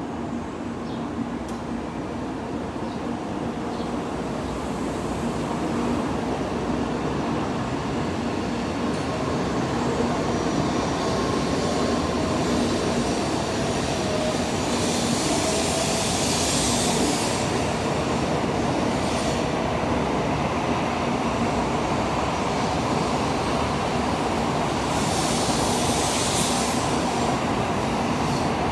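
N700A Shinkansen train running, a steady rumble that grows louder over the first ten seconds or so and then holds, with two brief high hissing rushes, one about halfway through and one near the end.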